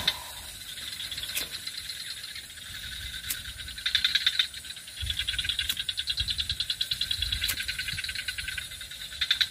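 Rapid pulsed trills from calling animals in the surroundings, coming in bouts: one around four seconds in, then a longer run from about five seconds on. A few faint ticks and low rumbles from handling sit beneath.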